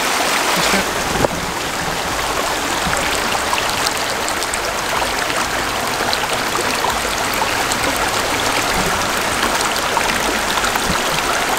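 Stream water rushing steadily, with one short sharp click about a second in.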